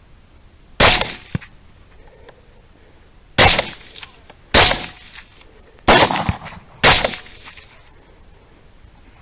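Five rifle shots fired at hogs over about six seconds, unevenly spaced. Each shot is a sharp crack with a brief echo trailing after it.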